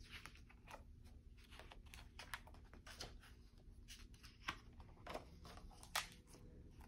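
Faint paper rustles and soft taps of a paperback picture book's cover and pages being opened and turned, with a few slightly louder page sounds in the second half.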